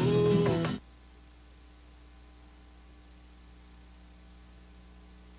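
A rock song cuts off abruptly under a second in, leaving only a faint steady electrical hum and hiss.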